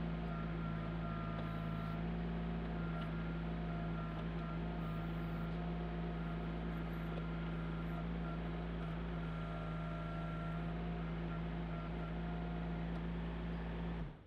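Compact tractor's diesel engine running steadily while it powers a rear backhoe digging a trench. A higher whine from the hydraulics comes and goes several times as the boom and bucket are worked. The sound cuts off suddenly near the end.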